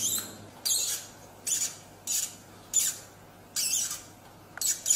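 A woman's short breathy gasps, about seven in a row, a little under one a second.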